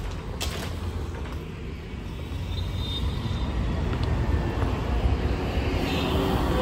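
Low rumble of road traffic, growing a little louder toward the end, with a brief click about half a second in.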